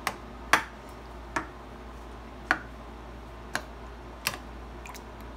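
A spoon clicking against the side of a bowl while stirring yogurt raita with mashed potato: about seven sharp, irregular clicks, the loudest about half a second in.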